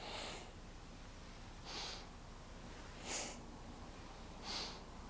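A woman breathing in and out in a steady rhythm, a short hissy breath about every second and a half, four in all, in time with seated spinal flexes: breathing in as the spine flexes forward, out as it flexes back.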